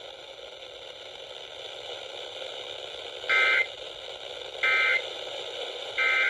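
Steady radio hiss, then the Emergency Alert System end-of-message code: three short, equal bursts of two-tone digital data about 1.3 seconds apart, marking the end of the warning message.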